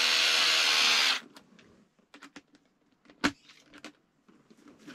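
Cordless electric screwdriver running steadily as it screws a tungsten stud into a rubber wading-boot sole, then stopping abruptly about a second in. Light clicks and taps of handling follow, with one sharper knock near the middle.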